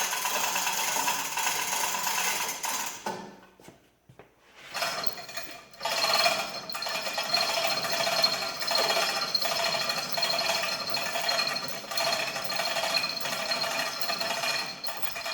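Overhead crane hoist lifting an engine block: a continuous mechanical clicking rattle that stops about three and a half seconds in and starts again about a second later.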